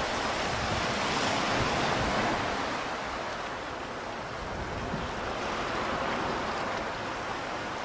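Ocean surf washing on the shore, a steady rush that swells over the first couple of seconds and eases off around the middle.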